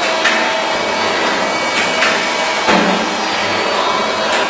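Automatic sandpaper disc-cutting machine running: a loud, steady mechanical noise broken by a few sharp clacks.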